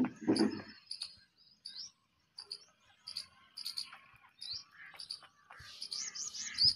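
Short, high-pitched bird chirps, some rising in pitch, come irregularly and then in a quicker run near the end. A brief scuffling noise sounds at the very start.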